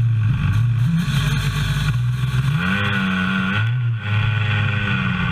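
Racing kart's two-stroke engine running close by, its revs rising about two and a half seconds in, then a brief drop and back to a steady note.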